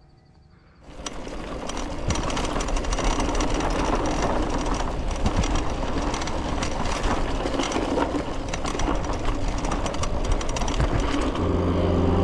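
Mountain bike rolling fast over a dirt trail: tyre noise on the ground with a constant clatter of rapid clicks and rattles from the bike, starting about a second in.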